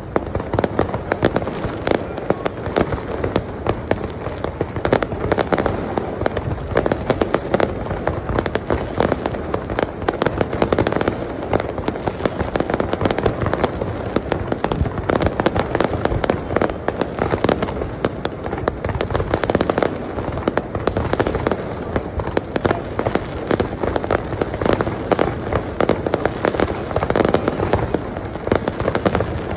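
Aerial fireworks display: a dense, continuous barrage of bangs, many per second, with no break.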